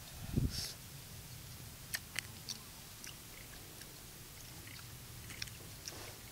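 A person biting into and chewing a sour small lime: a brief sucking sound near the start, then faint scattered mouth clicks.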